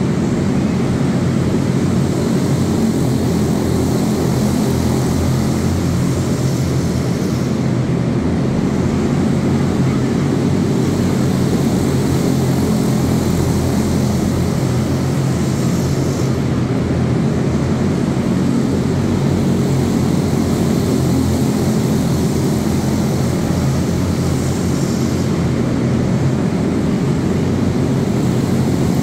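A pack of quarter midget race cars with single-cylinder Briggs & Stratton Animal engines racing at speed, a steady buzzing drone of several small engines that swells about every nine seconds as the pack comes past.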